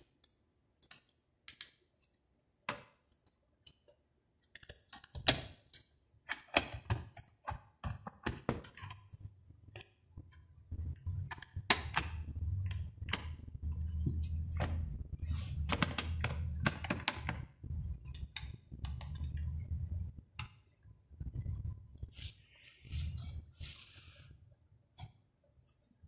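Hands handling a Pioneer DEH-1650 car CD receiver with its cover off: scattered clicks and knocks of its sheet-metal chassis and plastic parts, busiest in the middle, with a low rumble under them from about ten to twenty seconds in.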